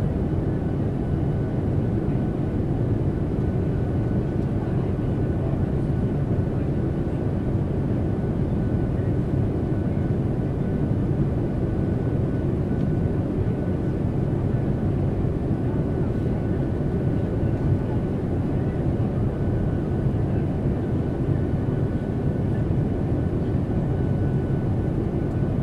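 Airliner cabin noise in flight: a steady low rumble of engines and airflow, with a faint thin high whine held throughout.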